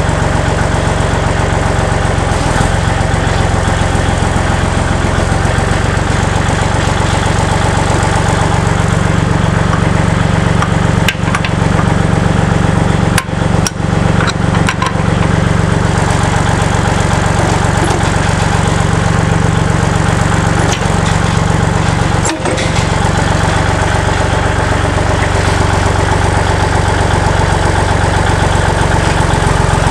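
Kubota compact tractor's diesel engine running steadily, with a few short knocks near the middle.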